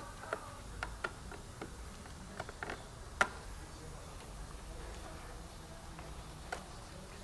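Scattered sharp plastic clicks and ticks from hands working the electrical connector and clips of a 2016 Chrysler 200's active grille shutter assembly, the loudest about three seconds in, over a faint low hum.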